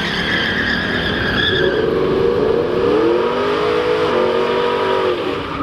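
Drag race car engine running at high revs, its pitch climbing for a couple of seconds and then holding before it eases off near the end.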